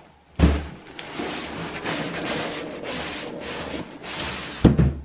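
Heavy nylon awning carry bag being shifted and pulled out of its cardboard box: the fabric rustles and scrapes against the cardboard, with a thump about half a second in and a couple of sharp knocks near the end.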